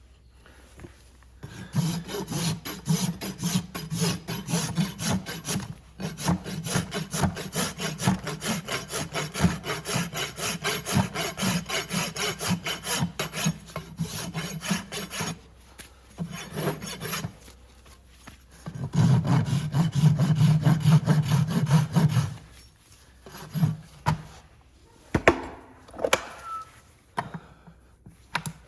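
Horse's hoof being filed with a farrier's rasp: quick, rhythmic back-and-forth scraping strokes, first in a long run, then a short one and another burst, followed by a few scattered knocks near the end.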